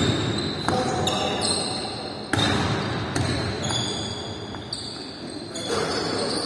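Basketball game on a wooden gym floor: the ball bouncing and sneakers giving short high squeaks, with several sharp knocks, one about two seconds in.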